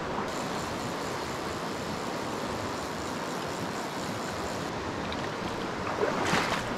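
River water flowing and rushing over rocks, a steady even noise, with a few brief sharper sounds near the end.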